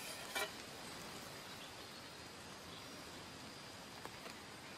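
Quiet outdoor background hiss with a faint steady high tone. A single light clink of a utensil on a metal camping plate comes about half a second in, and two faint clicks about four seconds in.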